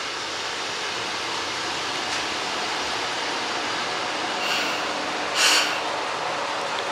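MRT300-series diesel railcar pulling into the platform and coming to a stop, with a steady rumble from the car and engine. A short, loud hiss of air sounds about five and a half seconds in as it halts.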